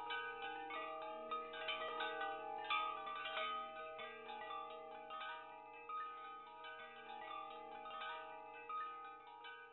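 Wind chimes ringing: many overlapping struck tones that sustain and blend, sounding irregularly several times a second.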